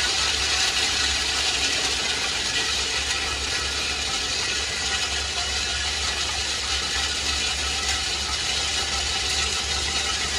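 Industrial snail-tail cutting machine running steadily with a load of snails and water inside, cutting off the shell tips: a constant low motor hum under a dense, even rattling hiss.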